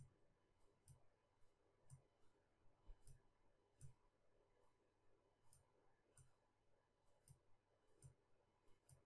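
Faint computer mouse clicks, roughly one a second, each a sharp click with a low thump, from pressing and releasing the button to draw brush strokes.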